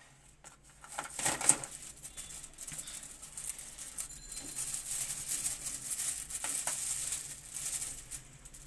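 Rustling and scraping of plastic-insulated electrical wires being pulled out of a coil and handled over cardboard and plastic sheeting, with a sharp click about a second and a half in.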